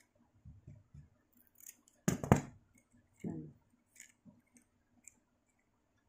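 Scissors snipping through a coconut palm leaf, several short crisp cuts, with one louder knock about two seconds in.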